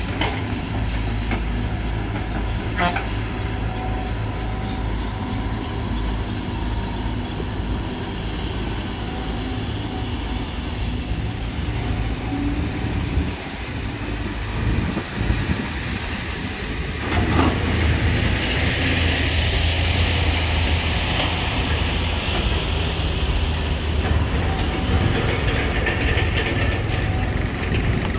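Volvo EC210D hydraulic excavator's diesel engine running steadily as it digs soil, with a knock about 3 seconds in. From about 17 seconds in it grows louder, with a higher hiss over the engine hum.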